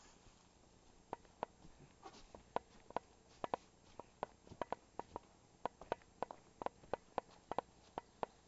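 A run of faint, sharp, irregular clicks and ticks, two or three a second, some coming in quick pairs.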